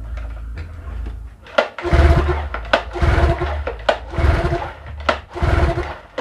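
Yamaha outboard engine under test after repair, running with a steady low hum and rising in four short, loud bursts about a second apart.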